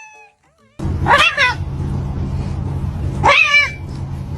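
A domestic cat yowling twice, two drawn-out, wavering calls about two seconds apart, over a steady low hum that starts just under a second in.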